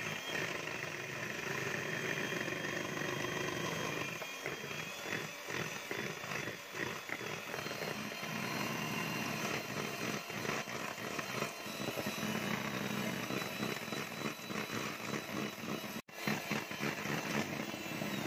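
Electric hand mixer running steadily, its twin beaters whisking egg whites and sugar in a stainless steel bowl into stiff meringue. The sound breaks off for an instant about sixteen seconds in, then carries on.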